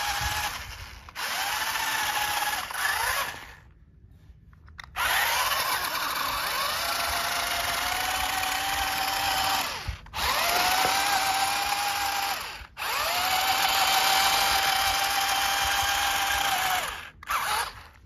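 Electric motor and gearbox of a small RC rock crawler whining in throttle bursts while it climbs loose sand. The whine rises in pitch at the start of each burst and then holds steady, with brief stops between bursts and the longest stop, about a second and a half, a few seconds in.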